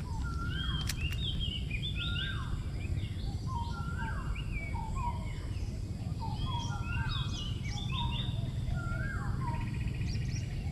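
Several birds calling over a steady low background rumble; one repeats a short falling whistled phrase about every two seconds, with higher chirps in between.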